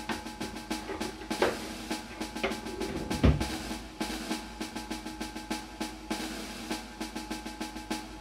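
Background music with a busy drum beat.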